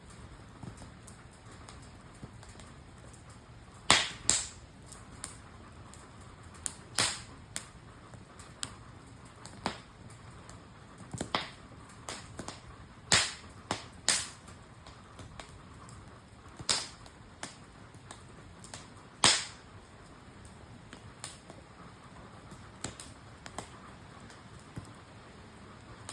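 Campfire wood crackling and popping: irregular sharp cracks, some loud and many faint, over a soft steady hiss.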